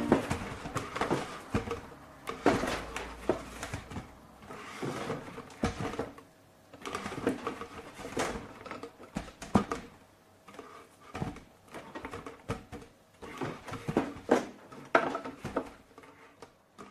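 Soft, irregular knocks, creaks and rustling of a person settling onto a cushioned chair and handling a drinking cup, in a small room.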